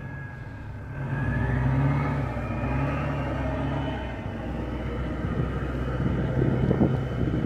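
Pickup truck engine pulling away across a muddy field in four-wheel drive, rising in pitch as it picks up speed about a second in, then running steadily as it moves off.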